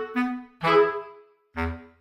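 Background music: a slow melody of separate pitched notes, each starting sharply and fading away, with short gaps between them and a lower note near the end.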